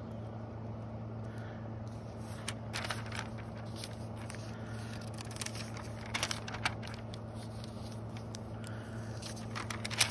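Glossy paper catalog pages being turned, several short crackling rustles with the sharpest near the end, over a steady low hum.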